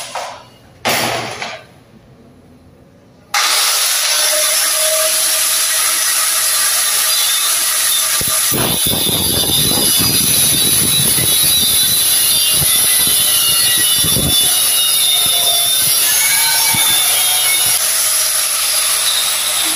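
A couple of brief knocks, then an angle grinder switches on about three seconds in and runs with a steady high whine. From about eight seconds on, its disc grinds through the metal stand tube of a projection screen, throwing sparks.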